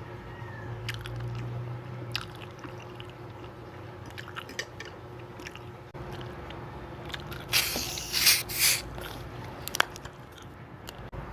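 Close-miked eating: biting and chewing with small wet clicks, and a short cluster of three louder crunchy bursts about two-thirds of the way through.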